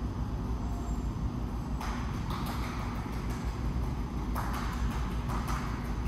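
Steady low hum of a large indoor hall, with irregular light taps and clicks coming in about two seconds in.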